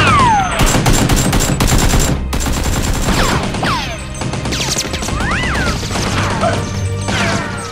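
Dubbed-in gunfire sound effects in rapid volleys, over background music. Several quick whistling sounds fall sharply in pitch along with the shots.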